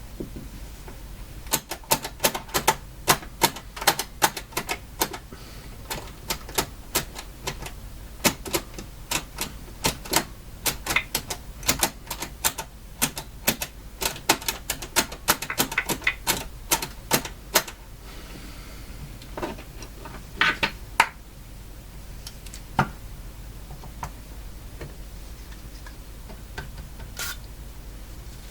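Mechanical station push buttons on a General Electric KL60 tube radio being pressed over and over, making a quick run of sharp clacks, about two to three a second, that thins to a few scattered clicks after the middle. The buttons are being worked to free them up after a cleaning spray.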